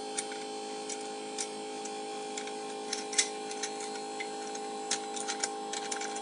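Light metallic clicks and taps, scattered and irregular, the loudest about three seconds in, as a clamp is adjusted on a phone-repair heating plate. Under them runs a steady electrical hum from the bench equipment.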